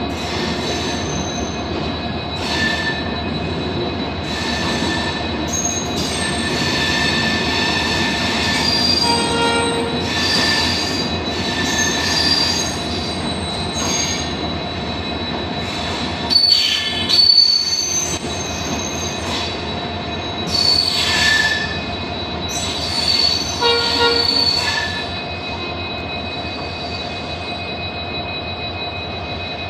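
Indian Railways LHB passenger coaches rolling along a platform, the wheels running on the rails with repeated high-pitched squeals. The squeals are loudest a little past the middle.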